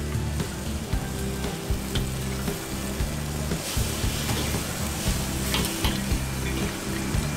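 Crab and scallions sizzling in a wok over a high flame, with a metal ladle scraping and clicking against the wok as they are stir-fried. Steady background music plays underneath.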